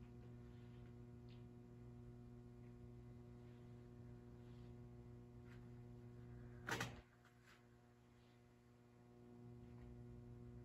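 Near silence: a steady low electrical hum of the room, broken once, about two-thirds of the way through, by a single short sharp knock.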